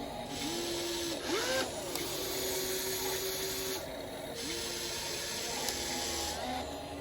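Electric gear motors of an RC toy excavator whining in two runs of a few seconds each as it works its arm. The pitch glides up and down as each motor starts and stops, over a gear hiss.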